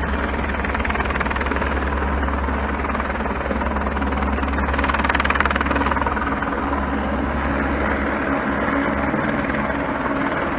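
Helicopter running steadily with a fast, even rotor beat under the turbine noise, swelling slightly about halfway through.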